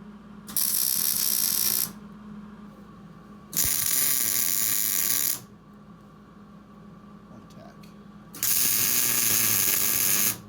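MIG welder tack-welding: three bursts of arc crackle and hiss, each about one and a half to two seconds long, over a steady low hum.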